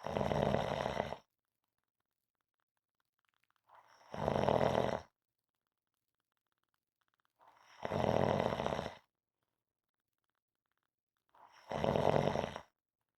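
A person snoring in a steady rhythm: four snores, each about a second long, come roughly every four seconds. Each snore swells in from a softer start, with near silence between them.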